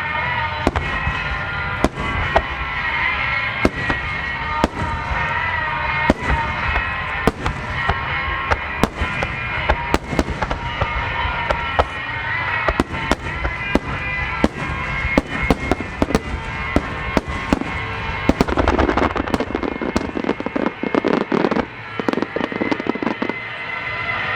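Aerial firework shells bursting in rapid succession, many sharp bangs a second, over music playing. About eighteen seconds in, a dense stretch of crackling lasts about three seconds.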